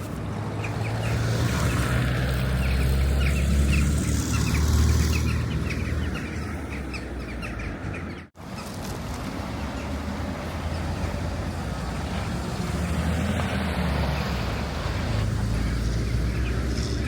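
Blizzard wind buffeting the camera microphone as a heavy low rumble, with short high chirps during the first few seconds. The sound cuts out abruptly about eight seconds in, then the rumble resumes.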